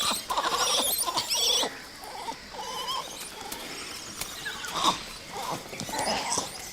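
Langur monkeys giving high, wavering squealing calls, loudest in the first couple of seconds, with shorter, quieter calls about five and six seconds in.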